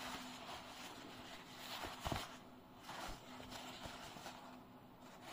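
Faint rustling of stiff denim fabric as a jeans leg is handled and folded in the hands, with a small tick about two seconds in.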